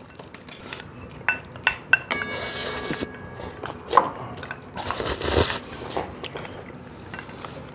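Tableware at a meal: cutlery clicking on ceramic dishes, several light taps with a short ring, and two brief scraping sounds, one about two seconds in and a longer one about five seconds in.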